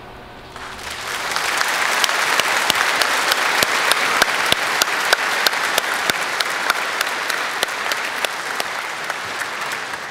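Large audience applauding. It builds up within the first second and holds steady, with single close claps standing out about three times a second, and starts to fade right at the end.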